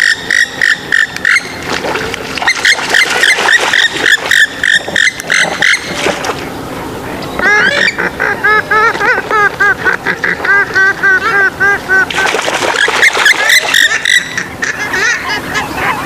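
Swamphens and moorhens calling loudly and repeatedly with fast clucking and honking notes, including a run of quick, evenly spaced notes in the middle.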